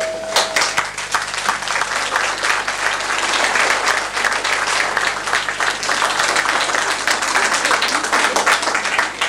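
Audience applauding, a dense spread of many hands clapping that eases off near the end. The last held note of the song's music stops about half a second in.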